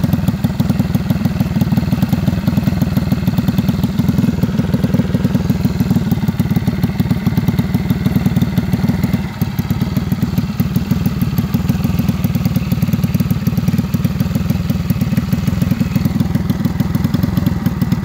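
Predator 212cc single-cylinder four-stroke engine running steadily at idle, with a brief dip in level about nine seconds in.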